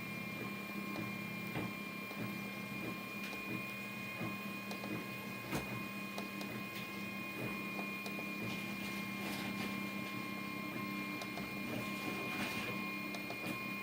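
Anet A8 3D printer running a print, with a steady high whine at two fixed pitches over a low hum and scattered faint ticks.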